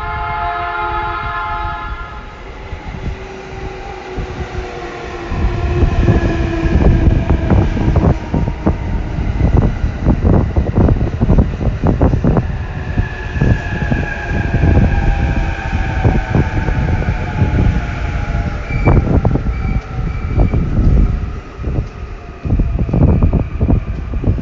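A 15-car JR Joban Line rapid electric train arriving at the platform: its horn sounds for about two seconds, then the wheels clack steadily over the rail joints as the cars roll past. Under the clacking, the motors' whine slowly falls in pitch as the train brakes, with brief squeals near the end.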